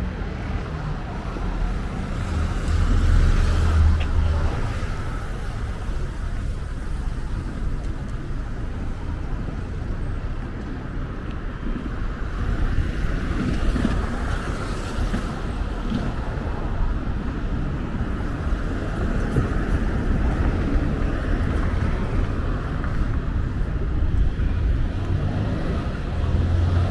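Street traffic: cars passing on a city street over a steady low rumble, with one louder pass about three to four seconds in.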